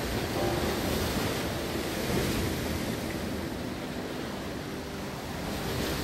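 Ocean surf breaking against coastal rocks: a steady rushing wash of waves crashing, loudest around two seconds in.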